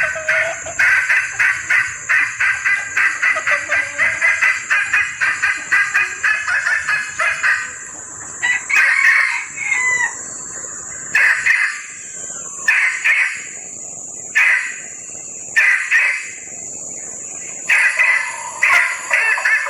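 Female junglefowl calling, the mating call used as a lure to draw males: a fast run of clucking notes, about four or five a second, for the first seven seconds or so, then single calls with short gaps, over a steady high hiss.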